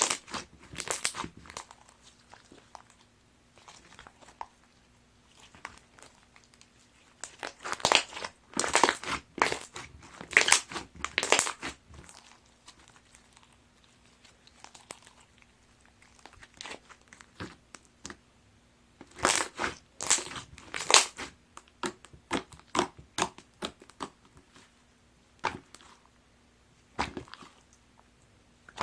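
Slime being squeezed and worked by hand, giving quick runs of sticky clicks and crackles, in several bursts with quiet pauses between them.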